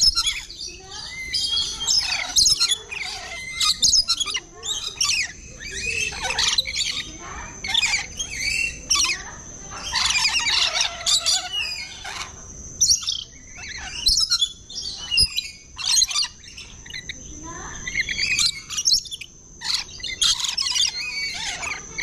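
A flock of rainbow lorikeets calls at close range: a dense run of shrill, short screeches and chatter, with brief lulls.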